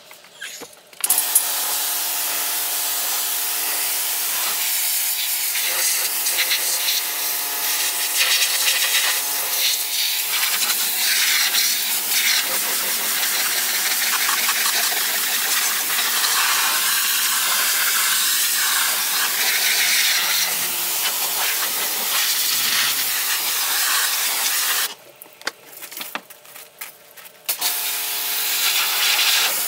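Pressure washer blasting soap off a van's bodywork: a loud, steady hiss of the water jet over a steady hum from the machine. It starts about a second in, stops for a couple of seconds near the end, then starts again.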